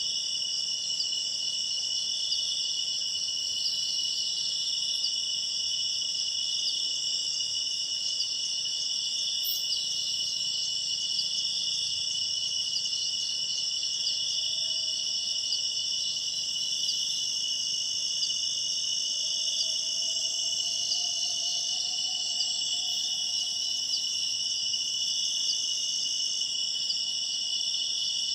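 Dense, steady chorus of night insects such as crickets, a continuous high-pitched shrilling with no breaks.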